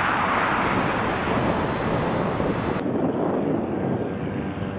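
Jet airliner engines running on a Boeing 747 freighter, a steady engine noise with a thin high whine over it. About three seconds in the sound cuts abruptly to a quieter, lower jet engine noise from a Boeing 757 freighter.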